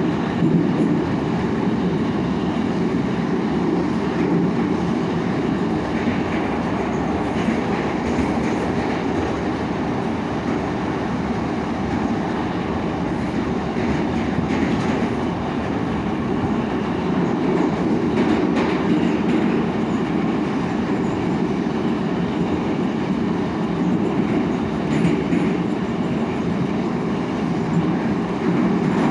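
Inside an 81-724.1 metro car running between stations: a steady, loud rumble of the wheels on the rails, with a few faint clicks now and then.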